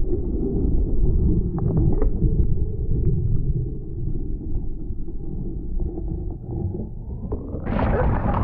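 Wind and handling noise on a helmet-mounted camera's microphone: a low, muffled rumble with a few light clicks. Near the end it turns brighter and hissier.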